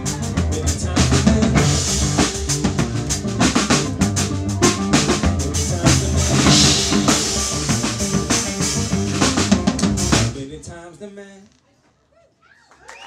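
Live cello and drum kit playing together, with busy cymbal and snare hits over low sustained cello notes, until the song ends about ten seconds in and rings away. Near the end the audience starts whooping and cheering.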